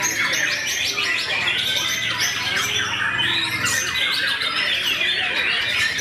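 Caged songbirds, a white-rumped shama among them, singing all at once in a dense, overlapping chorus of quick chirps, trills and whistles.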